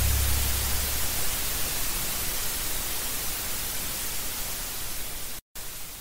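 Steady, even static hiss that slowly fades, with a brief drop-out about five and a half seconds in. The low rumble left over from the metal track dies away in the first second.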